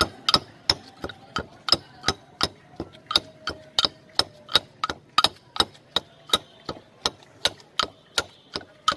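Pestle pounding raw green banana mash in a stone mortar: dull knocks in a steady rhythm of about three a second.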